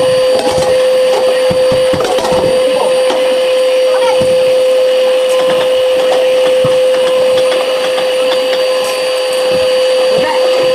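Vacuum cleaner running steadily with a constant whine, with scattered knocks and taps as it is worked against surfaces.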